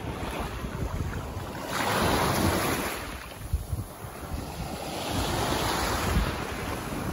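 Small waves washing up onto a sandy shore, with the surf swelling louder twice, about two seconds in and again around five seconds in. Wind rumbles on the microphone underneath.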